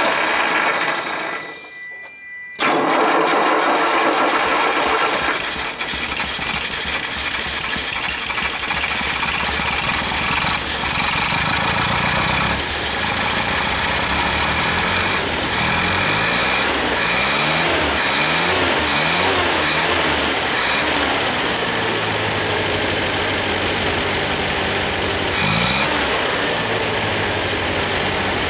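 1964 Land Rover's rebuilt four-cylinder petrol engine, bored out to 2.5 litres, starting for the first time since its rebuild. A short burst dies back, then it catches about two and a half seconds in and keeps running, its pitch rising and falling a few times past the middle. It is still untuned.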